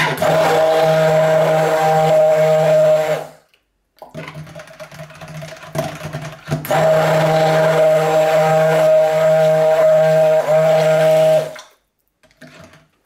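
Stick blender running in two bursts of about three and five seconds, with a short, quieter pause between, blending thickened soap batter into frosting.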